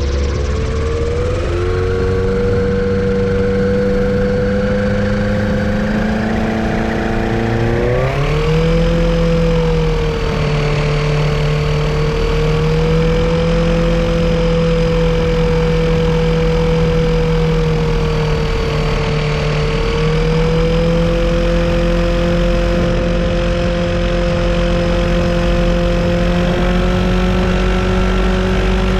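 Kitfox airplane's Yamaha Apex four-stroke four-cylinder engine running with its propeller turning, speeding up a little about a second and a half in and again sharply about eight seconds in, then holding a steady higher speed with slight rises and dips. The engine is being run to trace a misfire.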